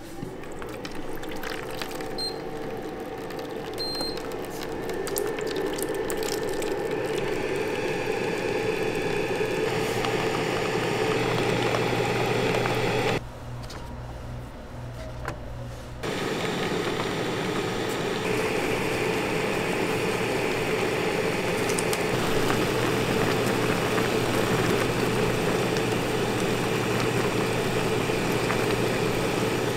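Automatic ramen cooker at work: two short beeps about two and four seconds in, then a steady hum under water pouring and bubbling as it heats the ramen toward a boil. The sound drops to a quieter level for about three seconds midway, then the bubbling and hum come back.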